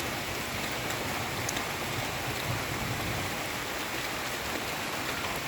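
Heavy rain falling steadily on banana leaves, a dense even patter with a few sharper drop ticks.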